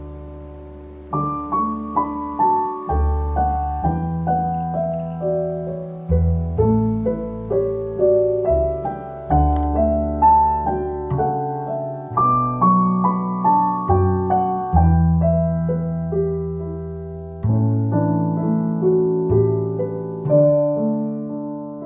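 Background piano music: a melody of struck notes, each fading away, over long low bass notes.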